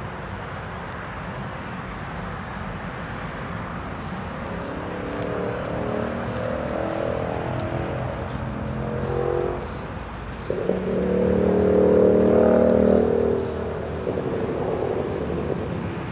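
A motor engine running nearby, its pitched sound building from about four seconds in, dropping away near the middle, then returning suddenly and louder for a few seconds before fading, over a steady hiss.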